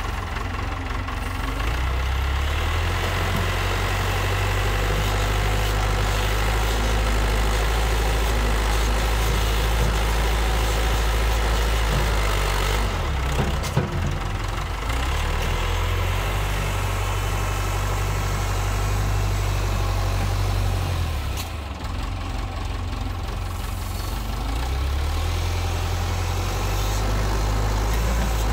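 Massey Ferguson 50E backhoe loader's engine running as the machine works a dirt slope with its front bucket. The engine note shifts up and down several times, with a short dip about halfway through and another about three-quarters of the way through.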